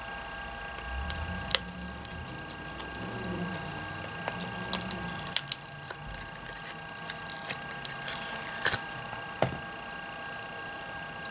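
Cured epoxy resin piece being worked out of a flexible silicone mold by hand: rubbing and squeaking of the silicone with a few sharp clicks scattered through. A faint steady high whine runs underneath.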